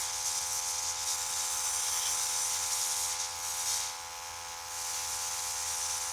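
Small airbrush compressor running with a steady hum, under the hiss of the airbrush spraying paint; the hiss eases off for a moment about four seconds in.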